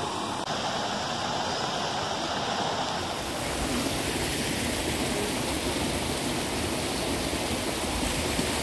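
Steady rushing of running water, which turns brighter and hissier about three seconds in.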